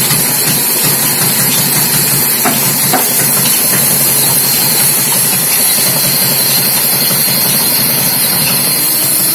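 Large sawmill band saw running steadily with a loud hiss as a big log is fed into the blade, over a steady low hum from the mill's drive.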